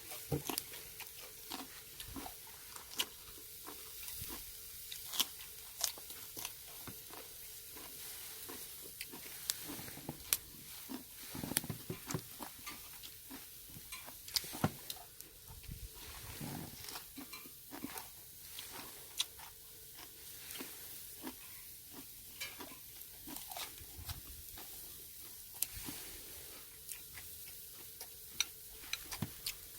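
Pork neck sizzling on a grill over a charcoal brazier: a steady frying hiss with many scattered sharp clicks and pops throughout.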